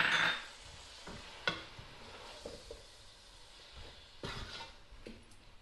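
A wooden spoon stirring and scraping chopped tomatoes, onions and chicken around a stainless steel pot, mixing in just-added spice powder and salt. The food sizzles faintly underneath. The sound is loudest right at the start, with a couple of sharp knocks of the spoon against the pot.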